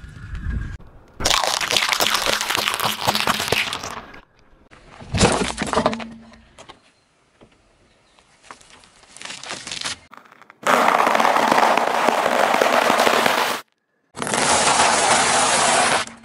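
A car tyre rolling over and crushing a series of objects: several separate stretches of loud crackling and crunching, each a few seconds long, broken by quieter gaps. The last stretch, near the end, is dry pasta crunching under the tyre.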